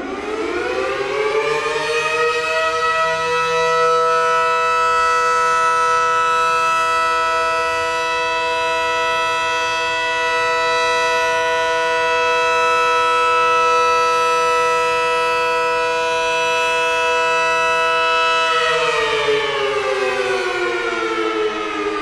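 ACA Banshee-110 dual-tone outdoor warning siren winding up to a steady chord, holding it for about sixteen seconds in a short test alert, then winding down with falling pitch near the end.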